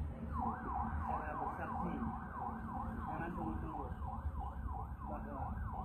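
A siren in a fast yelp, its pitch sweeping up and down about three times a second, starting just after the beginning, over a steady low rumble.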